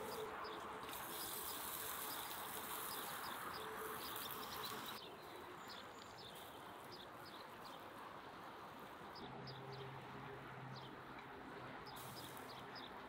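Outdoor ambience with small birds chirping repeatedly, over a steady hiss that drops away about five seconds in.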